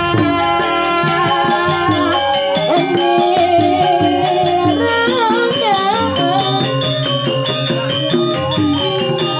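Balinese gamelan music accompanying a prembon performance: ringing pitched notes changing every second or so over a dense, steady beat.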